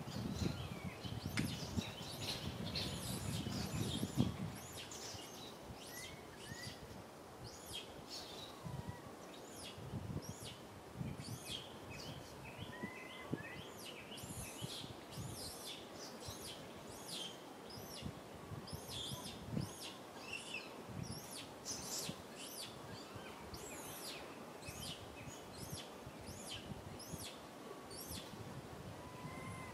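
Small birds chirping in a dense, continuous chorus of quick, high chirps, with a few short whistled glides mixed in. A low rustling rumble sits under them for the first four seconds.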